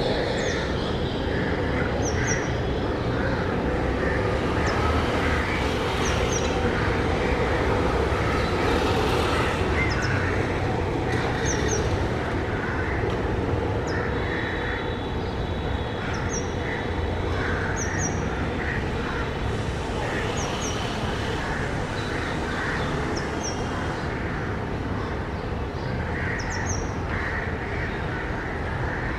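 Purple-rumped sunbird calling: short, very high double notes repeated every second or two, over a steady background rumble with other birds calling lower down.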